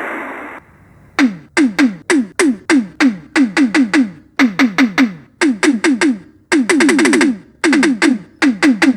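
Casio SA-78 keyboard playing one of its built-in sound-effect tones: a noisy hiss fades out in the first half-second, then rapid runs of short electronic drum hits follow, each dropping quickly in pitch like a synth tom.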